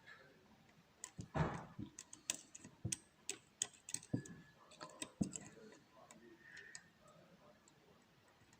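Irregular small metallic clicks and taps of a hook pick working the pin tumblers of a lock under a pry-bar tension tool, busiest in the first half, with one louder knock about a second and a half in.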